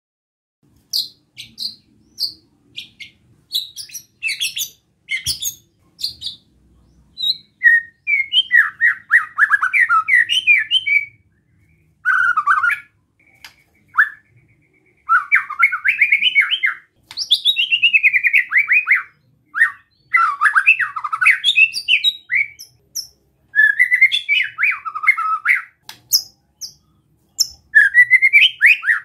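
White-rumped shama giving its besetan, a harsh challenge call that rouses other shamas: a scatter of sharp ticks and clicks, then bursts of rapid, rasping notes, each one to three seconds long with short pauses between.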